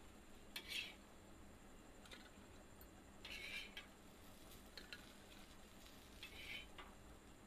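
Steel spatula scraping across a flat tava griddle as fried eggplant slices are lifted off: three short scrapes, with a few lighter clicks between them.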